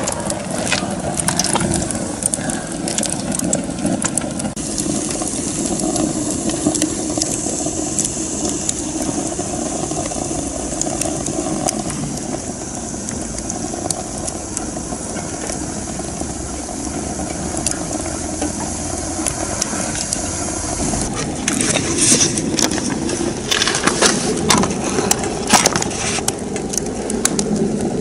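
Wood fire burning in a homemade rocket stove, a steady rushing noise with crackles; the crackling grows busier near the end.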